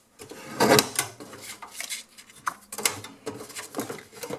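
Sliding cutting head of an Olympia paper trimmer drawn along its rail, slicing a strip off a sheet of paper, with the paper scraped and shifted on the trimmer bed. A run of rough scraping strokes, the loudest a little under a second in.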